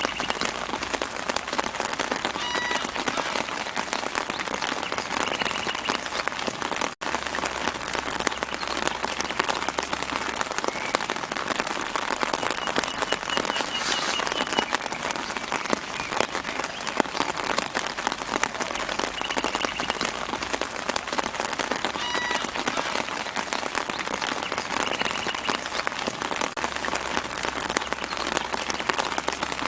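Steady light rain pattering on leaves, a dense run of fine drops. Small birds chirp faintly now and then, and the sound cuts out for an instant about seven seconds in.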